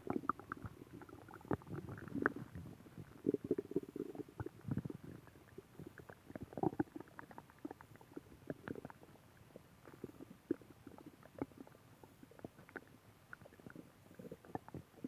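A person's stomach growling and gurgling: irregular low rumbles with many small pops and gurgles between them, the rumbles heaviest in the first seven seconds.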